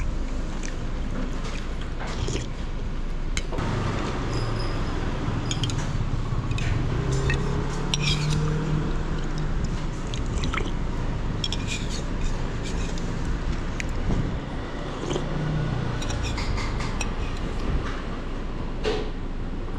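Steady street traffic noise with a motor passing through the middle, and scattered light clinks of a metal spoon against a bowl.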